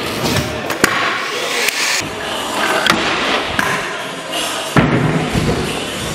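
Trick scooter wheels rolling and scraping over concrete and the edge of a wooden box, broken by several sharp clacks of landings and impacts.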